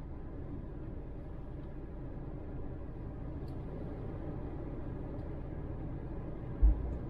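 Steady low rumble of a car's engine and tyres heard from inside the cabin while driving, with one brief low thump near the end.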